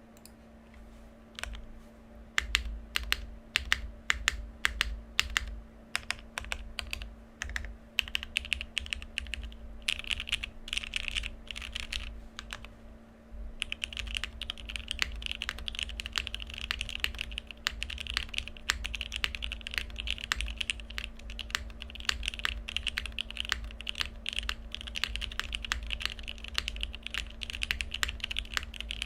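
Neo80 mechanical keyboard, plateless and without foam, with vintage Cherry MX Black linear switches, Staebies stabilizers and GMK keycaps. It starts with slow, separate presses of the stabilized keys, then short runs of single keys. From about 13 seconds in comes steady, fast typing.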